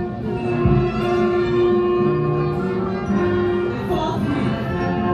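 Orchestral music with long held notes.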